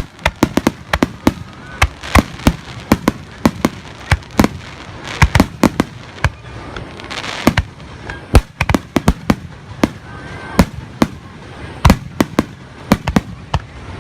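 Fireworks going off in a rapid, irregular barrage of sharp bangs, often several a second, some in quick clusters.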